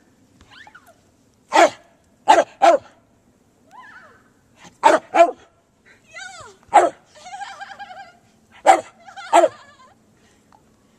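Dog barking in short, sharp barks, singly and in quick pairs, about eight in all, with higher whining yips between them: excited play barking while being urged on.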